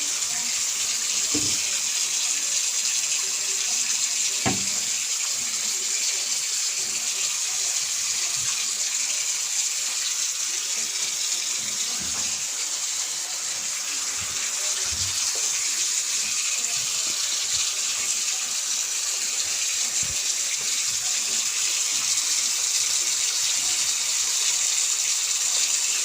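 Tap water running steadily while a dog is washed, with a few faint knocks now and then.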